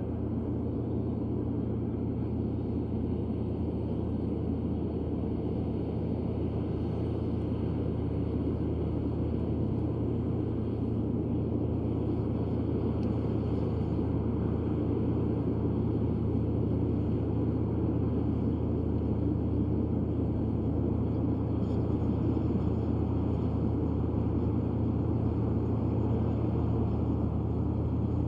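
Komatsu D155A bulldozer's diesel engine running, a steady low drone that grows slightly louder about halfway through.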